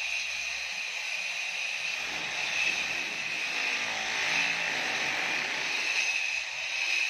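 Electric wall chaser running under load, its blades grinding a groove through brick with a steady high-pitched whine.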